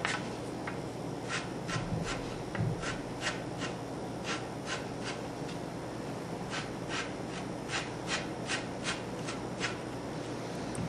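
Kamui Gator Grip tip tool rasping against the leather tip of a pool cue, roughening (agitating) the worn tip's surface. Short scratchy strokes come about two or three a second, with a brief pause around the middle.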